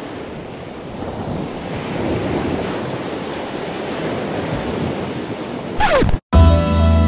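Ocean surf breaking and washing on a sandy beach, with wind on the microphone. Near the end a short falling tone sounds, the sound cuts out briefly, and music begins.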